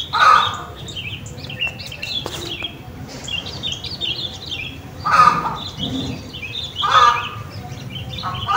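Garden bird ambience: small birds chirping busily and continuously, with a louder, lower bird call three times.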